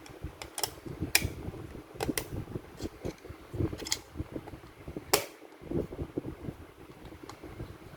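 Irregular sharp clicks and light knocks of a wall switch's plastic button and cover being handled and pressed into place, over a steady low hum.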